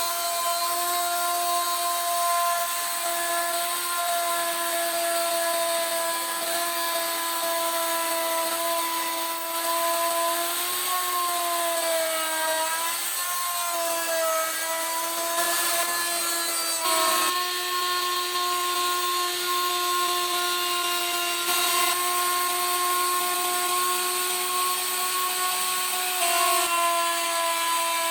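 Handheld cutting machine fitted with a circular saw blade, running steadily with a high whine, its pitch sagging briefly twice near the middle.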